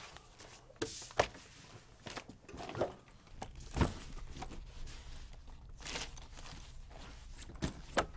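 Scattered soft knocks and clicks, a second or two apart and irregular, of things being handled on an office desk, over a low steady room hum.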